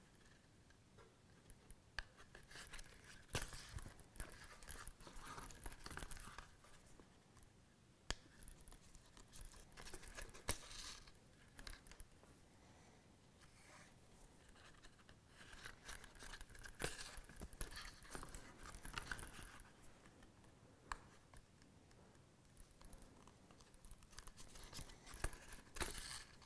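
Thread being drawn through stitching holes in a leather case during hand saddle stitching: faint rasping pulls every few seconds, with a few sharp small clicks.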